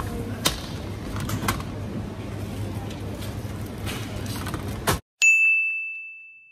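Steady supermarket background noise with a few sharp clicks, then a sudden cut to silence and a single bell-like ding sound effect that rings out and fades over about a second and a half.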